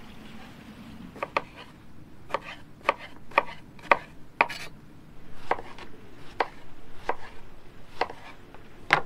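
Kitchen knife cutting eggplant on a wooden cutting board: the blade knocks through onto the board about a dozen times at an unhurried, uneven pace.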